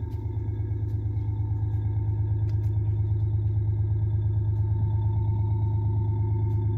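Jeep Wrangler Rubicon's 3.6-litre V6 running steadily after its worn camshaft and lifter were replaced, with the earlier ticking from the lifters gone.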